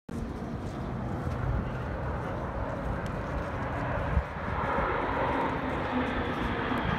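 Jet engine noise from a formation of aerobatic jets flying overhead, a steady rush that grows louder in the second half.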